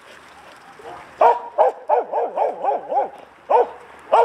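Young herding dog barking at sheep while chasing them. Two single barks about a second in, then a quick run of about six barks, and two more near the end.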